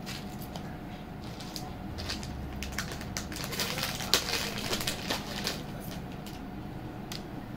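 A beaded jewellery set being handled: rapid light clicks and rattles of beads and metal pieces, thickest in the middle, with one sharper click about four seconds in.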